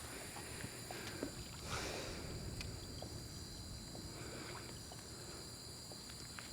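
Night-time waterside ambience: a steady high-pitched insect chorus over a low rumble, with faint scattered clicks and a short splash about two seconds in.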